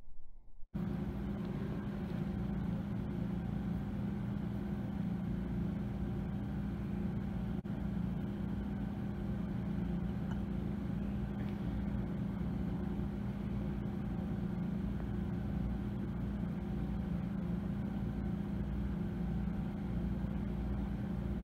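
Steady machinery hum of aquarium equipment, such as tank pumps and air handling, with an even low drone around 200 Hz. It starts abruptly under a second in and holds unchanged.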